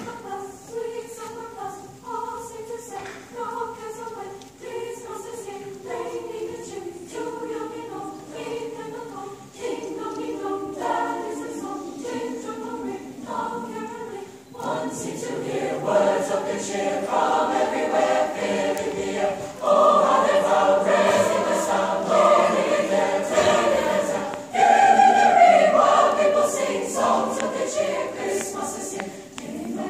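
Large high school mixed choir singing, softly and in short, evenly spaced notes at first, then fuller and louder from about halfway through.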